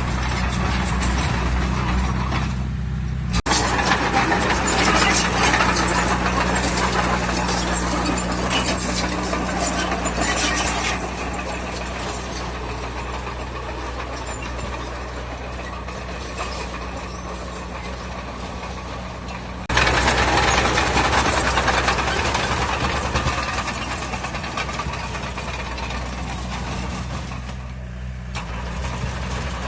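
Diesel engine of a Komatsu D20P bulldozer running steadily while working, with stretches of louder, rougher noise on top. The sound jumps abruptly about three seconds and about twenty seconds in.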